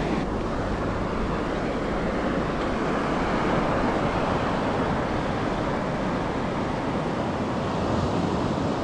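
Shallow sea surf washing over a sandy beach, a steady rush of water with a low rumble underneath.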